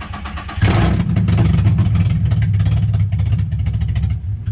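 Nissan 350Z's 3.5-litre V6, just reinstalled after a rebuild, running on old gas moments after first firing. About half a second in it jumps much louder and holds there, easing off near the end.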